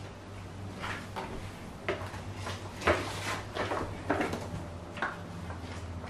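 Footsteps and knocks on a hard floor, about one a second and uneven in strength, over a faint steady low hum.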